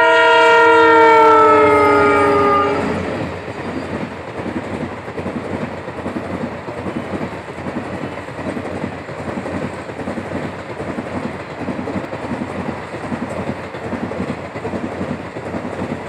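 Indian diesel locomotive's horn blaring in a chord of several tones, sagging slightly in pitch as it moves away and cutting off about three seconds in. Then a passenger train's coaches rumble past with a continuous clickety-clack of wheels over the rail joints.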